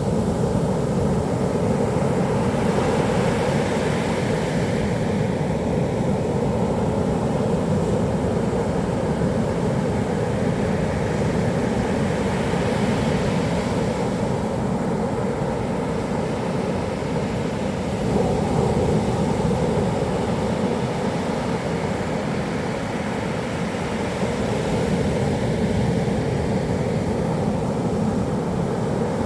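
Heavy typhoon-driven surf rolling in with a steady low rumble, mixed with wind noise on the microphone, swelling briefly a little past the middle.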